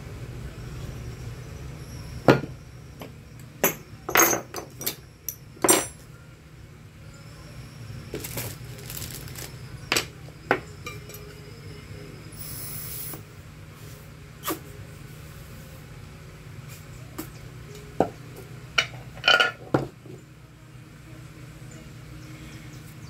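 Scattered clinks and knocks of metal tools and small parts being handled and set down on a workbench, along with an aluminium pressure-cooker lid being moved about, over a steady low hum.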